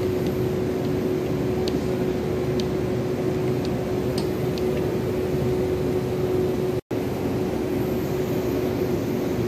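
Steady machine hum with one constant droning tone and a few faint scattered ticks; it cuts out for an instant about seven seconds in.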